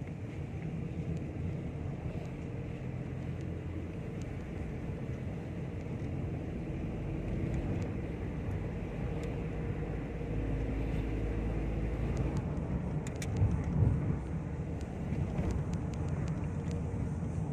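Car cabin noise while driving: a steady low engine and tyre rumble, with a few brief knocks about three-quarters of the way through.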